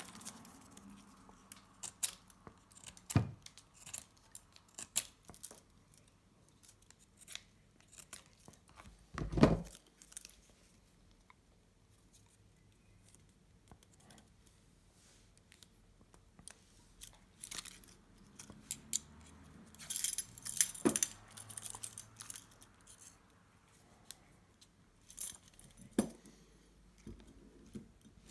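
Steel handcuffs clicking and rattling as a wooden ice lolly stick is worked in beside the ratchet to shim them, in scattered small clicks with one louder knock about a third of the way through and a busier run of clicks later on.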